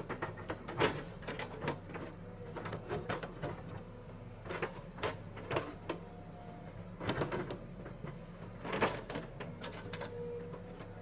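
Heavy construction machinery running with a steady engine hum, under repeated irregular knocks and clanks from the working machine.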